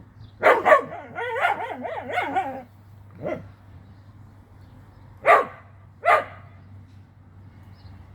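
Pet dog barking in play: two quick barks, then a second or so of wavering, high yips, then three single barks spaced out over the next few seconds.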